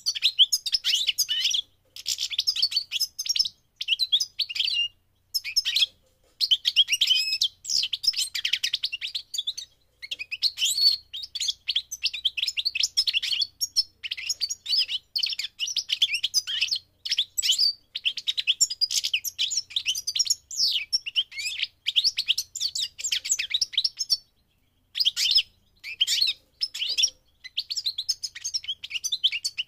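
European goldfinch singing: long runs of fast twittering notes, broken by short pauses.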